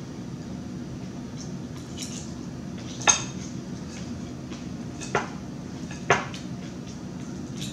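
A metal fork clinks against a dinner plate three times, about three, five and six seconds in, as it spears salad.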